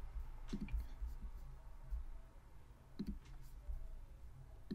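A few isolated computer mouse clicks: one shortly after the start, one about three seconds in and one at the very end, over a faint low hum.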